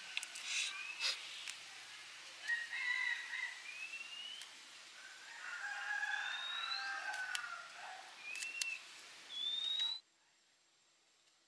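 Birds calling, chickens among them, with several short rising whistled notes and lower clucking calls. The sound cuts off abruptly about ten seconds in.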